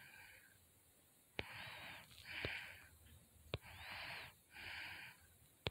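A person breathing quickly and faintly close to the microphone, in paired in-and-out breaths about every two seconds with a slight whistle on some of them. A small click comes just before each pair.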